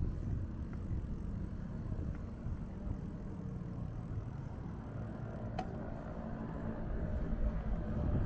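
Steady low rumble of road traffic on a city street, with a single sharp click about five and a half seconds in.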